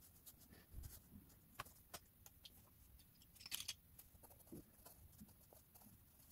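Faint pencil on paper: light scratching strokes and scattered small ticks as graphite lines are drawn, with a brief louder scratch about three and a half seconds in.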